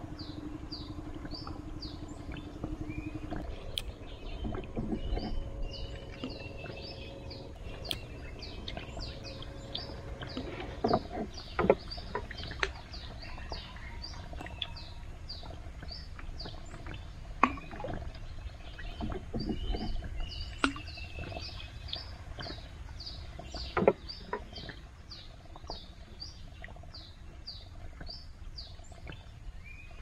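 Outdoor riverside ambience dominated by birds chirping in a steady, high, repeated series, about two chirps a second. A low hum stops about three seconds in, and a few sharp knocks, likely from the wooden boat, come later.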